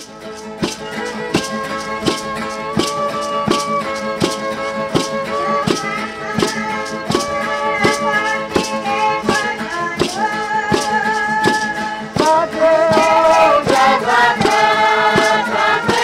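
Several voices singing a chant together over a gourd rattle (maracá) shaken in an even beat, about two to three strokes a second. The singing grows louder about twelve seconds in.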